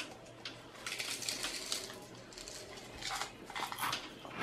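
Dry Frosted Flakes cereal rattling out of a clear cup into the mouth and being crunched while chewed: a run of irregular crackly clicks and rustles.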